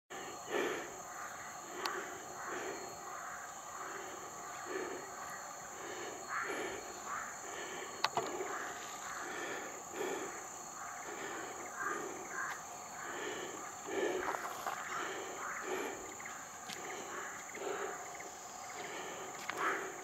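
Steady high-pitched drone of jungle insects, with regular walking footsteps on a paved road about every two-thirds of a second and a single sharp click about 8 s in.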